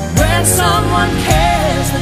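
Background music: a slow ballad with a melody line that has vibrato, over steady backing.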